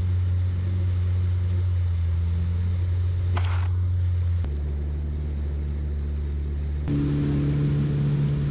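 Yamaha FX Cruiser HO WaveRunner's four-stroke engine running at a steady cruise, a low drone that drops abruptly to a lower pitch about halfway through and jumps higher near the end. A brief hiss about three and a half seconds in.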